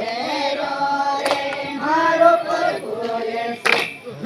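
A group of voices singing a devotional garba song together in chorus, with two sharp hits partway through.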